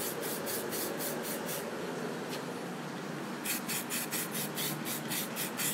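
Aerosol spray can of Samurai Paint 1701 sparkling silver hissing in quick short bursts, about four or five a second, with a steadier spray in the middle. The paint is flicked on in light passes for a thin sparkle coat over a silver base.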